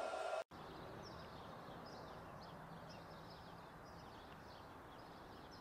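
A steady electrical hum for about half a second, cut off abruptly. Then faint outdoor ambience with small birds chirping now and then.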